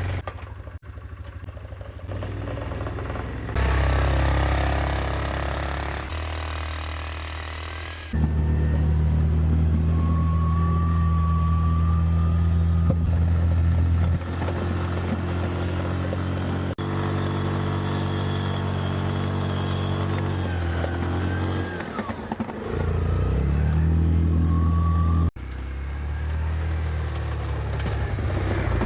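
Four-wheeler (ATV) engine running while it pushes a snow plow, its pitch and level shifting as it works. The sound jumps abruptly several times where stretches of driving are cut together.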